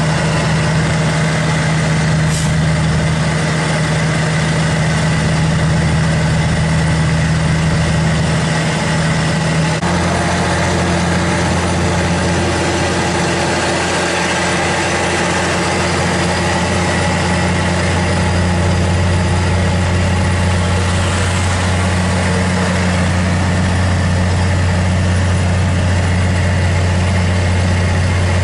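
Log truck's diesel engine running steadily under way, its low note changing abruptly about ten seconds in, then holding steady again.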